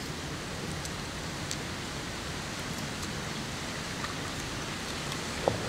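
Steady gritty noise of spices being ground by hand on an ammi stone grinding slab, with a few light knocks of stone near the end.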